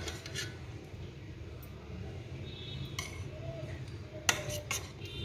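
Scattered light clinks of kitchen utensils and dishes, a few separate taps with the sharpest about four seconds in, over a low steady background hum.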